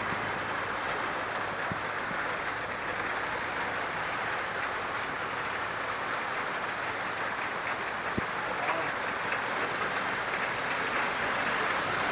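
Heavy rain falling steadily as an even hiss on a standing-seam metal roof and wet pavement. Two faint knocks come through, one about two seconds in and one about eight seconds in.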